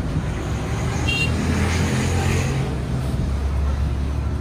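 Steady low rumble of vehicle traffic, with a short high-pitched tone about a second in.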